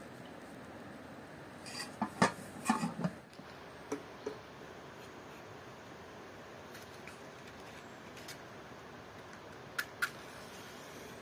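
Scattered clinks and knocks of dishes and utensils being handled: a cluster of them about two seconds in, two more soon after, and two sharp ones near the end, over a faint steady background.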